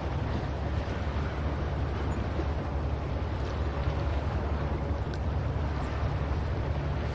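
Steady ocean surf and wind, with wind buffeting the microphone and giving a strong low rumble.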